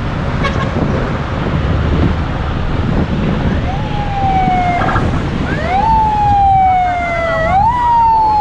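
A siren, starting about halfway in and repeating a pattern of a quick jump up in pitch followed by a slow slide down, about every two seconds, over a steady rumble of road traffic and wind from a moving bus.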